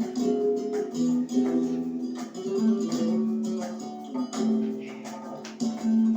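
Flamenco music in the tangos style, led by a strummed and plucked acoustic guitar, with frequent sharp percussive accents.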